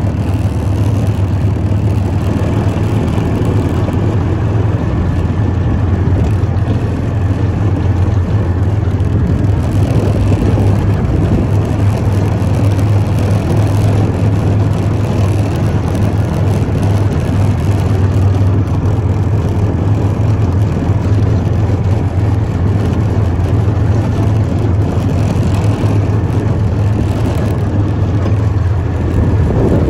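Engine of a small farm vehicle running steadily while it drives over grass and a dirt track, a constant low hum under a spread of rumble and rattle.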